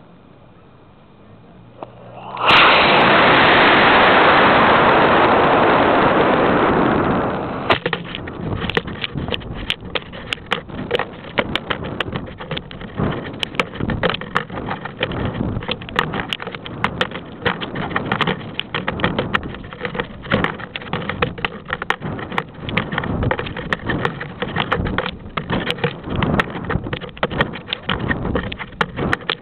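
An F50-6T rocket motor igniting about two seconds in, heard from a camera taped to the rocket: a sudden loud rushing roar for about five seconds. It then gives way to a fast, steady crackling rush of wind buffeting the camera as the rocket flies and falls.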